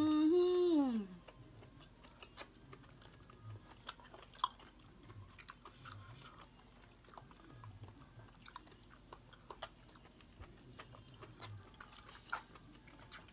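A drawn-out voiced sound lasts about a second and falls in pitch at the end. After it comes quiet chewing of steamed king oyster mushrooms, with small mouth clicks scattered throughout.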